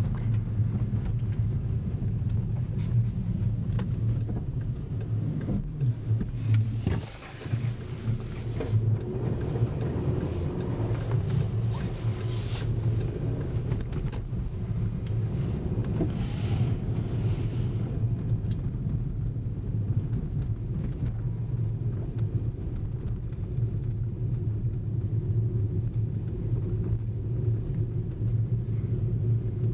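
A 2010 Volkswagen Jetta's 2.0-litre turbocharged four-cylinder drones steadily while the car drives through snow. It drops away briefly about seven seconds in, and a hissing rush of tyres through snow comes over it for about ten seconds after that.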